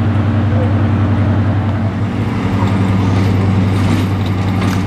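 Diesel engines of a Class 55 Deltic and Class 47 locomotive pair running at low speed as the locomotives draw slowly past. The engine note is loud and steady, and it drops slightly in pitch about two seconds in.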